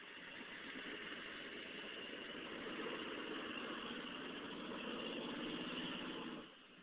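The Yukon's 6.5-litre diesel V8 working hard as it climbs a steep dirt hill. It grows louder over the first second, holds steady, then drops away suddenly near the end.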